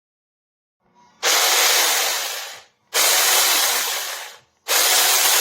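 Sukumo 6-inch cordless mini chainsaw running in three short bursts, each about a second and a half, starting abruptly and dying away, with a hissing chain sound.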